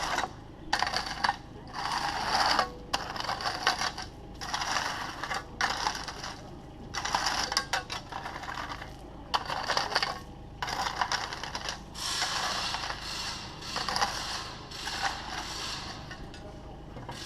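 Takeuchi TB216 mini digger's bucket scraping and crunching through loose stone in repeated irregular strokes, each up to a couple of seconds long, over the low steady running of its diesel engine.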